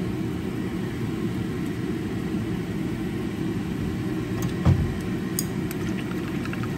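A steady low whir, with one sharp knock a little past halfway and a light clink just after as wooden chopsticks go into a ceramic bowl to stir a soy-sauce and starch mixture.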